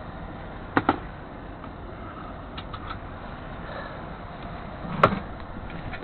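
Knocks and clicks from someone moving around inside a Freightliner semi-tractor cab: a quick double click about a second in and a sharper knock about five seconds in, over a steady low rumble.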